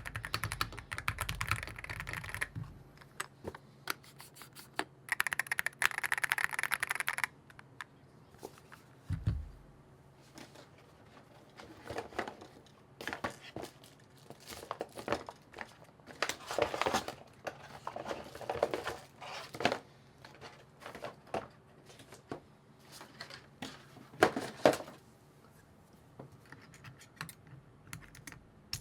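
Typing on an Akko MOD007B HE keyboard: two fast runs of key clicks, then scattered slower key presses with some rustling and handling noise.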